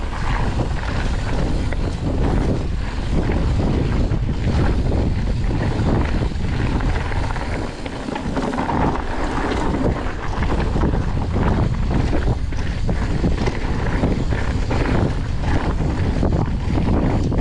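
Wind buffeting a bike-mounted or helmet camera's microphone as a mountain bike rolls down a rough dirt trail. The tyres crunch and the bike rattles steadily, with many small knocks throughout and a brief lull near the middle.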